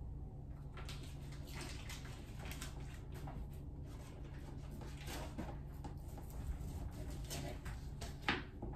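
Faint kitchen handling sounds: light rustling of a butter's paper wrapper and small knocks on the counter over a steady low hum, with a sharper click about eight seconds in.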